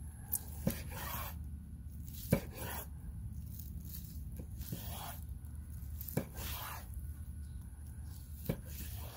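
Knife slicing through a cooked skirt steak with several cuts, each stroke rasping through the seared crust and ending in a knock of the blade on a wooden cutting board. The loudest knock comes about two seconds in.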